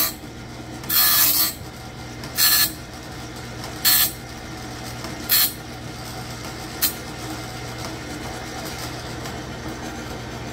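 Cook's Cat Claw bandsaw blade sharpener's grinding wheel hitting the blade teeth in gritty bursts about every one and a half seconds, each shorter than the last, as the stone head is raised off the blade; the last is a brief tick about seven seconds in. The electric motor and feed mechanism run on steadily underneath.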